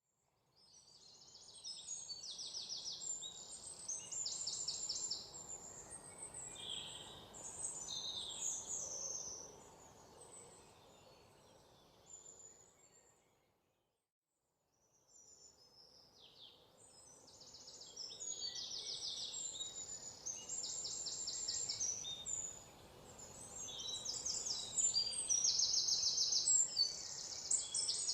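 Several songbirds singing with high, rapid trills and chirps over faint background noise. The sound cuts out completely for a second or two about halfway through, then the birdsong returns, loudest near the end.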